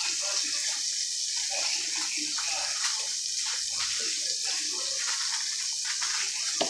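Kitchen tap running steadily, water pouring into the sink with a constant hiss, and a light knock near the end.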